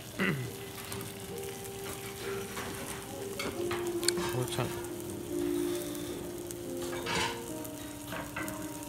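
Hamburg steak and fried egg sizzling on a hot iron sizzle plate: a steady frying hiss, with a few light clicks.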